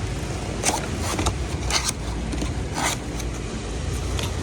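Packaging handled during an unboxing: several short scrapes and rustles of box and wrapping over a steady low hum.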